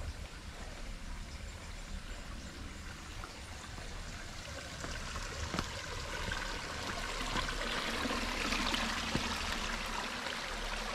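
Hillside stream running, a steady rush of water that grows louder over the second half.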